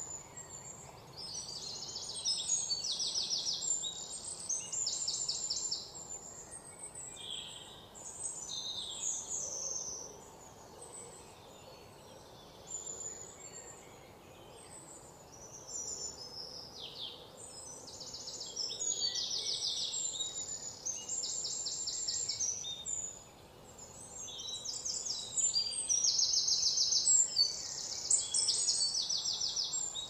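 Several small birds singing and chirping, with rapid high trills every couple of seconds, busiest and loudest near the end.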